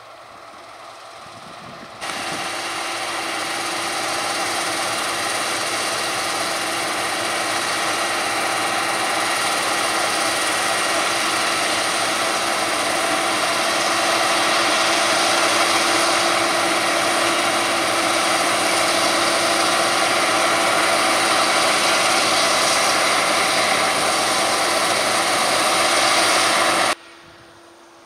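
Claas Lexion 660 combine harvester at work cutting barley: engine and threshing machinery running loud and steady, with a constant whine over the drone. It comes in abruptly about two seconds in, grows a little louder, and cuts off abruptly a second before the end.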